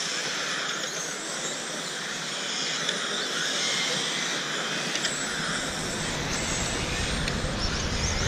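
Electric radio-controlled touring cars racing round a track, their motors giving a high-pitched whine that swells and fades as the cars pass. A low rumble comes in about five seconds in.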